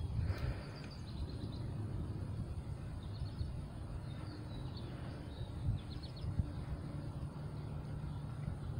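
Steady low outdoor rumble with faint birds chirping a few times in the middle. There is a brief knock right at the start.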